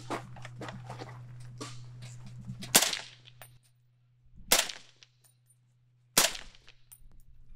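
Suppressed rifle shots from a .308 rifle fitted with a prototype .30-calibre suppressor. A few sharp reports come one every second or two, starting nearly three seconds in.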